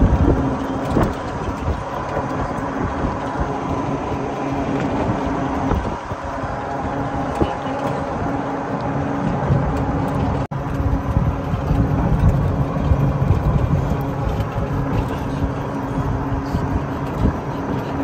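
Open golf cart driving along pavement: wind buffeting the microphone and tyre rumble over a steady hum from the cart. The sound drops out for an instant about ten seconds in.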